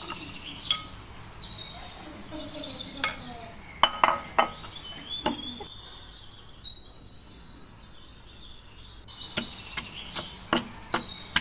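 Wooden pestle knocking into whole star gooseberries in a wooden mortar as they are lightly crushed: a few scattered knocks in the first half, then a quick run of about four knocks a second near the end. Birds chirp in the background.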